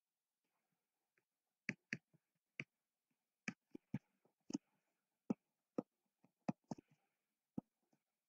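Stylus tip tapping against a tablet screen during handwriting: an irregular series of sharp clicks, the first about a couple of seconds in, then roughly two a second.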